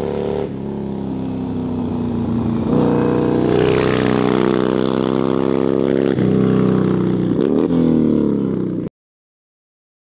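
1990 Harley-Davidson FXR's Evolution V-twin engine accelerating hard through the gears, its pitch climbing and falling back at each shift. The sound cuts off suddenly near the end.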